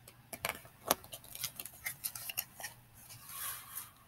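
Pages of a hardcover picture book being handled and turned: a string of light clicks and taps, then a short papery swish near the end.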